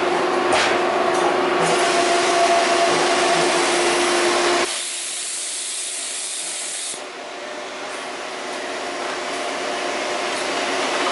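Euromac MTX CNC turret punch press and its load/unload system running: a steady machine hum with a hiss over it. About four and a half seconds in the hum drops out suddenly, leaving mostly a hiss that slowly builds back up.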